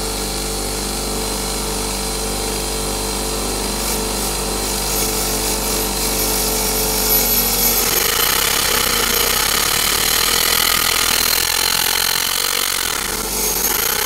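Bench grinder motor running steadily. About eight seconds in, the sound turns rougher and louder as the Lucas SR1 magneto is held against the spinning wheel to drive it for a spark test.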